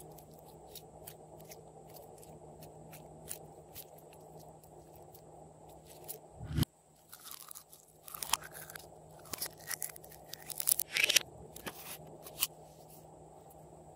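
Glossy slime being stretched, folded and squeezed by hand, making sticky crackling and popping clicks that get denser and louder in the second half.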